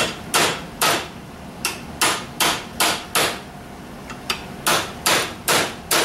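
Hammer striking a steel pin punch to drive a door hinge roller pin out of a hinge clamped in a bench vise: a dozen or so sharp metal-on-metal blows, two or three a second, each ringing briefly, with a short pause a little past the middle.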